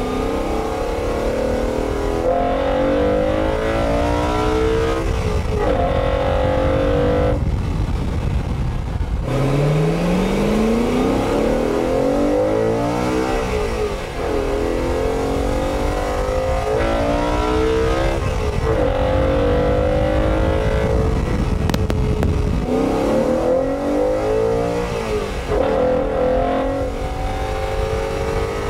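BMW E92 M3's 4.0-litre V8, fitted with an Eventuri carbon intake and a Dinan catless exhaust, accelerating through the gears. The engine note climbs in pitch, drops at each upshift and climbs again, over and over, with a brief lift off the throttle about seven seconds in.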